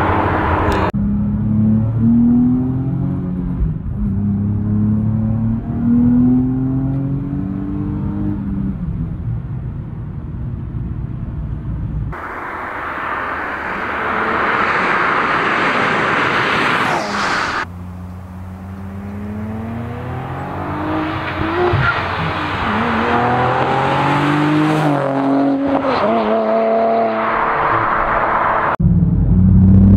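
2023 Nissan Z's twin-turbo 3.0-litre V6 through catless downpipes and a cat-back exhaust with an X-pipe, accelerating hard past in a series of flybys: the exhaust note climbs in pitch through each gear and drops back at each shift. Midway there is a loud rushing stretch as the car sweeps past.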